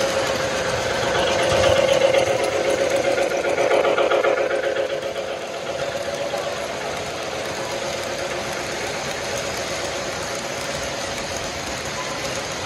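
Model train running on tubular steel track, a steady mechanical hum and rattle of its motor and wheels as the cars pass close by. Louder for the first five seconds or so, then a little quieter and even.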